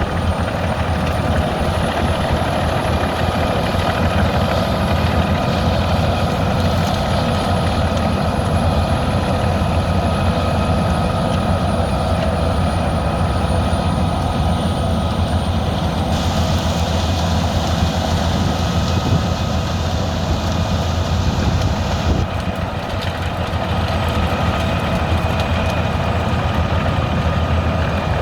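Albach 700 hp biomass wood chipper running under load while chipping brashwood, a continuous loud mechanical drone with steady tones. A brighter hiss joins it a little past the middle and cuts off suddenly several seconds later.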